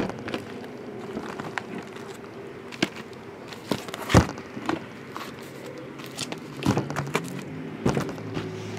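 Sealed trading-card boxes handled and set down on a table: scattered light knocks and clicks, the sharpest about four seconds in, over a faint steady hum.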